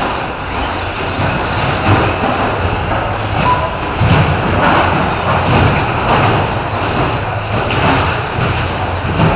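Several RC short-course trucks racing on an indoor off-road track, their motors and tyres making a steady mechanical noise that fills the hall. A short beep sounds about three and a half seconds in.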